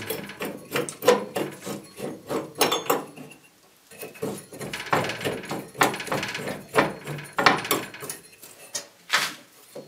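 Irregular metallic clanks, knocks and clicks as a 2 mm sheet-steel blank is clamped in a bench bending jig and bent, its clamp screws turned by hand. There is a short lull about three and a half seconds in.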